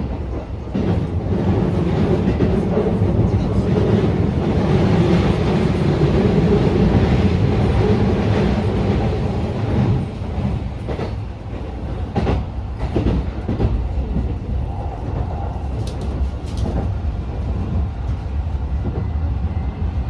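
Keikyu New 1000 series electric train running, heard from inside the passenger car as a steady rumble of wheels on rail. It is loudest in the first half and eases off after the middle, with a few sharp rail-joint clacks in the second half.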